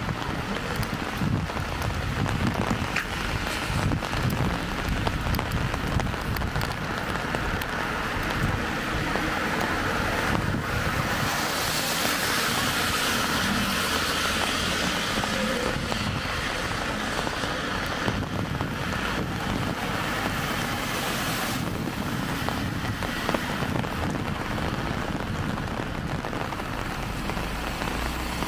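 Light rain on a wet city street, with car tyres hissing on the wet road as traffic passes, swelling and fading between about ten and eighteen seconds in. An uneven low rumble of wind on the microphone runs underneath.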